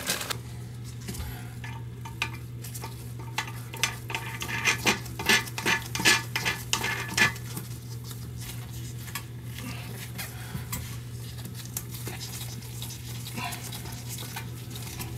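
Clicks and scrapes of a toilet floor bolt being screwed down by hand tool, with a run of quick clicks between about four and seven seconds in. A steady low hum runs underneath.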